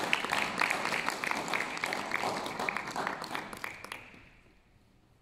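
Audience applauding: many hands clapping, thinning and fading out about four seconds in.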